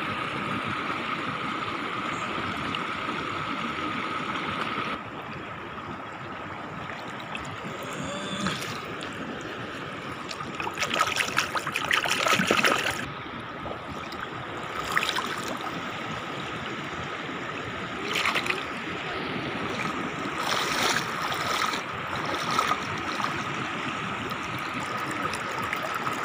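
Shallow river water streaming and trickling over a sandy bed, swelling louder a few times in the middle, with a thin steady tone underneath.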